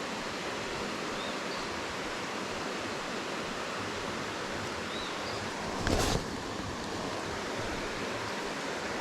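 Steady rushing of river water, with a brief handling knock or rustle close by about six seconds in.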